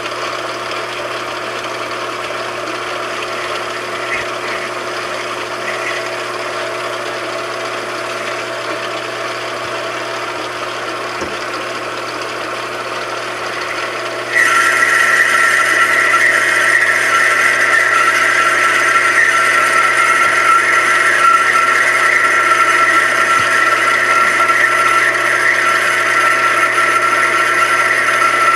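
A machine tool running steadily with a hum of several steady tones; about halfway in a louder, higher-pitched steady whine comes in suddenly and holds to the end.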